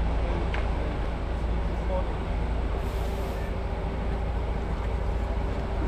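Steady low engine and road rumble inside a moving tour coach, with a constant hum.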